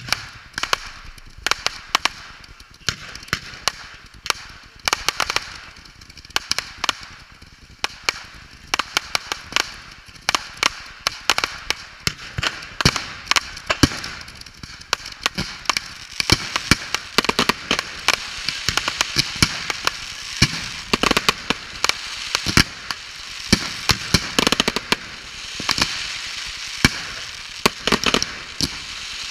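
Ground-level fireworks going off: a fast, irregular string of sharp cracks and bangs. The cracks grow denser in the second half over a rising hiss.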